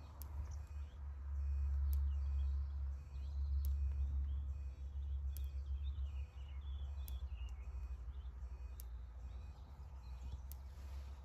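Low wind rumble with small birds chirping, and a faint sharp tick about every one and a half to two seconds.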